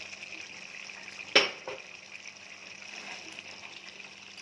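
Bread halwa of sugar syrup, fried bread and ghee bubbling and sizzling steadily in an aluminium kadai. About a second and a half in, a utensil knocks sharply against the metal pan, followed by a smaller knock.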